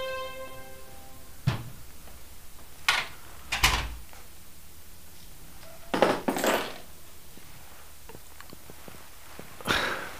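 Soft music fades out within the first second. Then come a few scattered knocks and thuds, some with a dull low thump, about five in all over several seconds, like someone moving about a room and handling a door or furniture.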